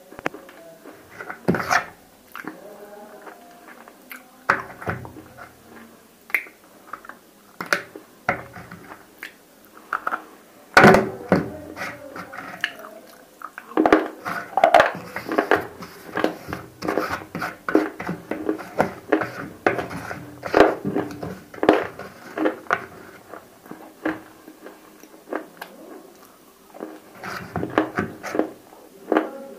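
Close-up crunching and chewing of hard, dry edible-clay cubes coated in roasted clay (nakumatt) paste. Irregular sharp crunches, the loudest about eleven seconds in, come thickest through the middle stretch and thin out near the end.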